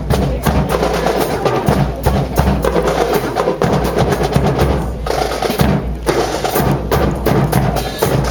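Marching drum corps playing a busy drum cadence, a dense run of drum strokes without a break.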